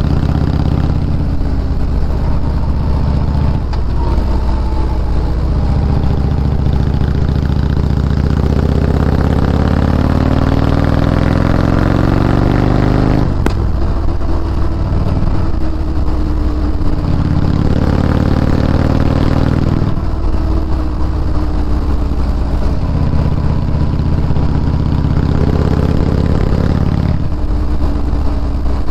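2010 Harley-Davidson Road King Classic's V-twin engine running through Jekyll & Hyde aftermarket exhaust while riding. The engine note climbs steadily as the bike accelerates, drops sharply about thirteen seconds in, then climbs and falls back several more times.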